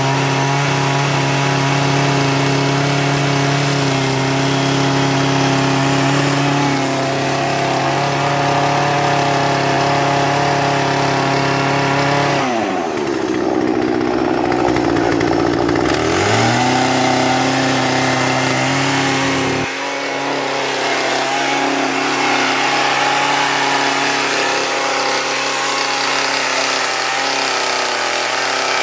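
Gasoline chainsaw idling with a steady engine tone. About halfway it is revved to full throttle for about three seconds, its pitch rising sharply, then drops back to idle.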